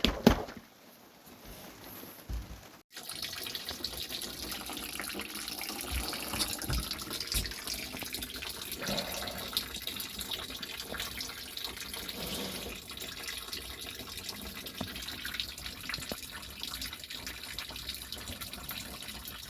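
Water splashing and trickling steadily, leak water that has collected inside a boat's hull. It starts about three seconds in, after a short quiet stretch.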